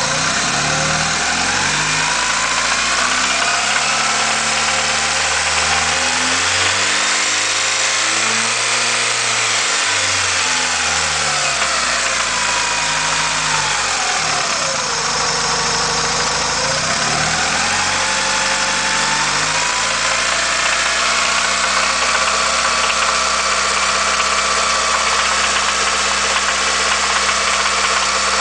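1990 Honda Accord's four-cylinder engine running, revved up and let back down in the middle, with a knocking noise that the owner hears when revving it to about 2000–2500 rpm.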